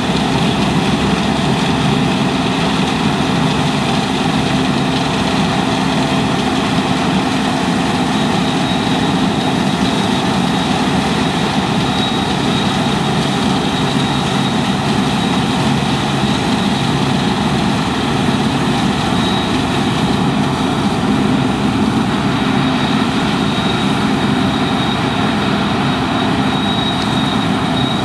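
Deutz-Fahr 6095 HTS combine harvester running steadily under load. Its engine hum is joined by a faint, steady high whine.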